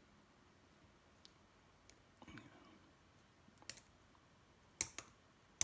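Scattered small clicks and taps, with a brief scrape, as the metal plate is fitted and pressed down into the plastic housing of a BMW iDrive controller; the loudest click comes near the end, as the plate seats.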